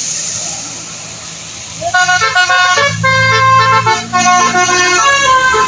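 A bus's telolet horn, a set of electric air-horn trumpets, plays a quick melody of stepped tones starting about two seconds in, over a low engine drone. Before the horn there is only a steady hiss of rain and wet road.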